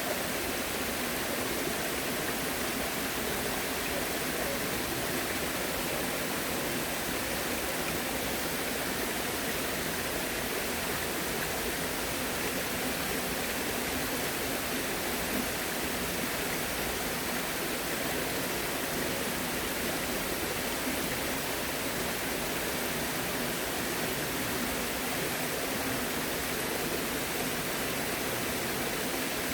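Running water, a steady even rush that does not change.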